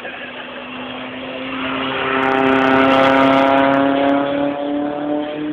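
Nissan 200SX's engine running hard as the car drives past on the circuit, growing louder to a peak about halfway through, then fading with a slight drop in pitch as it goes by.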